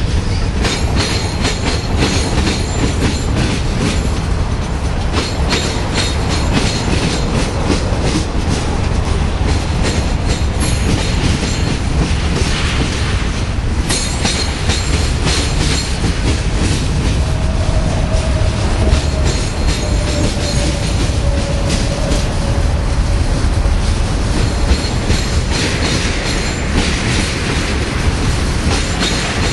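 Freight cars of a Union Pacific manifest train (tank cars, covered hoppers and boxcars) rolling past with a steady heavy rumble and continual clacking of steel wheels on the rails. A faint, thin wheel squeal sounds for several seconds midway.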